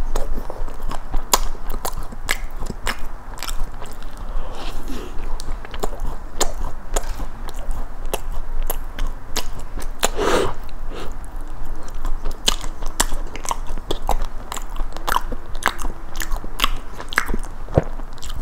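Close-miked eating sounds of biting and chewing a blueberry cookie cheesecake: a dense run of sharp wet mouth clicks and crunches. A bigger bite comes about ten seconds in.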